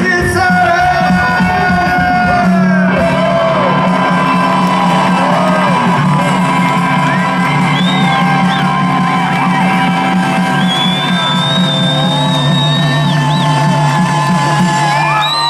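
Live rockabilly band with electric guitar and upright bass, the guitar ringing out long held notes and sliding bends over a sustained low note, with the crowd shouting and whooping.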